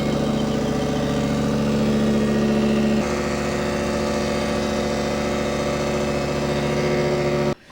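Milling machine running a face mill across a cast Zamac block: a steady motor hum with a fast, fine chatter from the cutter. The sound shifts slightly about three seconds in and stops abruptly near the end.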